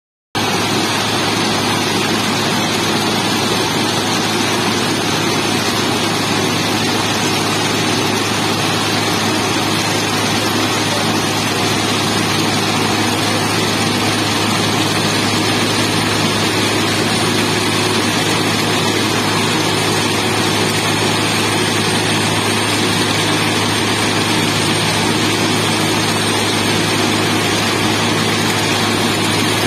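Diesel engine of an FRM-85F track formation rehabilitation machine running steadily as the machine creeps along the track, a constant low hum with a broad mechanical din over it.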